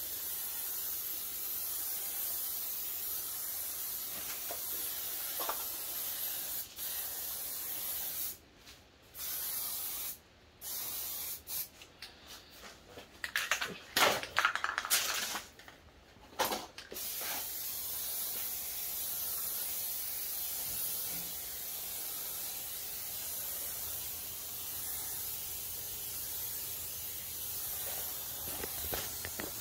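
Aerosol spray-paint can spraying onto a plastic bumper grille in long passes, a steady hiss. Around the middle the spraying breaks off a few times, with some louder knocks, before the hiss resumes.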